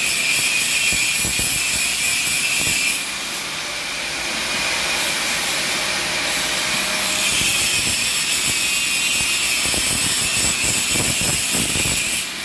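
TIG welding arc running with a steady hiss and a thin, high, constant whine, with a crackle underneath. It drops briefly about three seconds in and again near the end.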